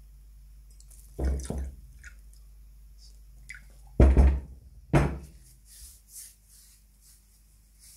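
Work handling on a wooden workbench: about five knocks and clunks of objects being set down or tapped, the loudest about four seconds in, followed by a few soft, short swishes.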